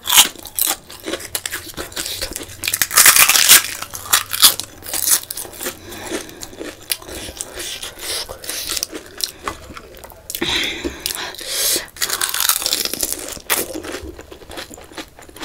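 Close-miked mouth sounds of eating panipuri: the crisp fried puri shell crunching and cracking, then steady chewing, with many sharp little crackles and a few louder stretches of crunching.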